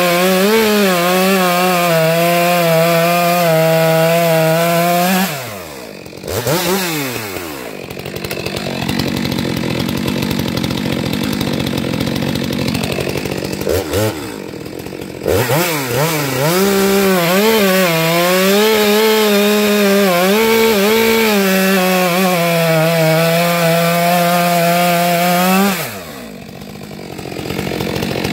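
Stihl two-stroke chainsaw cutting through log rounds at full throttle, its pitch wavering under load. It eases off and revs a few times between two long cuts, then drops back near the end.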